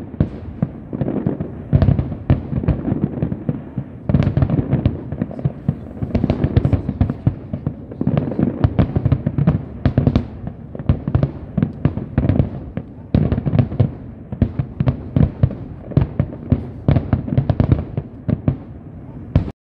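Fireworks display: a rapid, near-continuous barrage of aerial shell bangs and crackles over a steady low rumble, cutting off suddenly at the very end.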